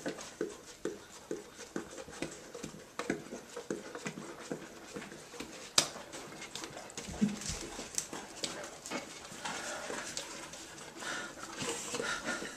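A Weimaraner licking yogurt out of a plastic tub: quick, irregular wet laps and smacks, with its tongue and muzzle knocking against the tub's plastic, one knock sharper than the rest about six seconds in.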